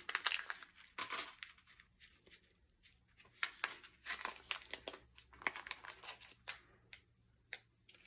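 Faint, irregular rustling and crinkling with small clicks and taps as paper craft pieces and supplies are handled on a work surface.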